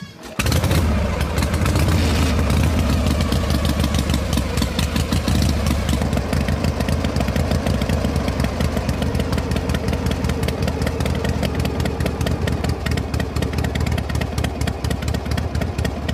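Tractor engine running steadily with a rapid, even pulse, coming in abruptly about half a second in.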